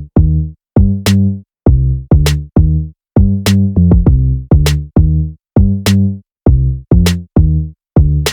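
Electronic music with a drum-machine beat: short, clipped, pitched bass notes separated by silences, with a sharp clap or snare hit about every 1.2 seconds.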